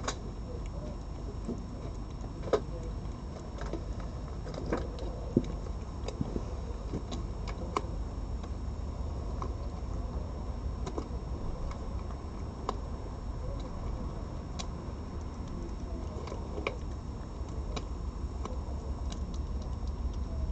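A cat eating, its chewing heard as scattered sharp clicks and crunches every second or so, over a steady low hum.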